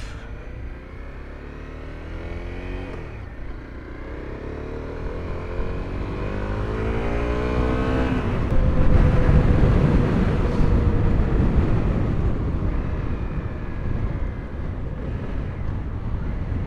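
Honda CRF250L's single-cylinder four-stroke engine accelerating, its revs climbing twice as it pulls through the gears. From about eight seconds in a loud rush of wind on the microphone covers the engine at road speed.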